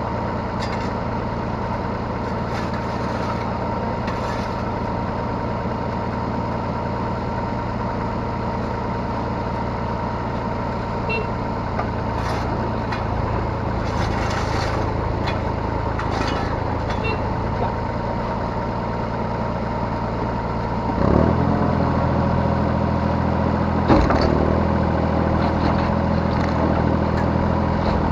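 Yanmar B3Σ 3-ton mini excavator's diesel engine running steadily under hydraulic work, heard from the operator's cab. About two-thirds of the way through the engine note drops and shifts, then runs louder, and a single sharp knock follows a few seconds later.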